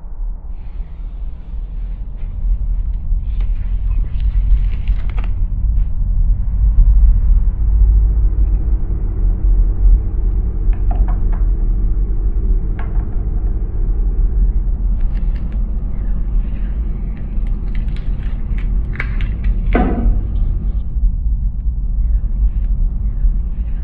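Steady low car rumble that starts abruptly at the outset, with a few faint clicks and a brief rising swish about twenty seconds in.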